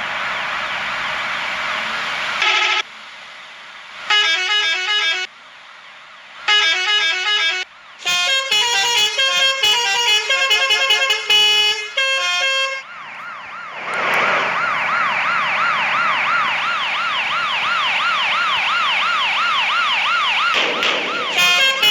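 Indonesian bus 'telolet' musical horns: a steady horn blast, then several bursts of quick multi-note tunes, and about two-thirds of the way through a fast warbling siren-like wail lasting about six seconds before the tunes start again.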